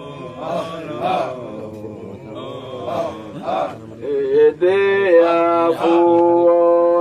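Male voices chanting a Sufi Qadiriya dhikr. For about four seconds the chanted syllables come in a rhythm of roughly two a second. After that a man's voice sings long held notes, louder.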